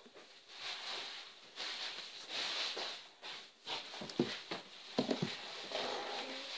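Rustling and a few light knocks from handling close to the microphone, over a steady hiss.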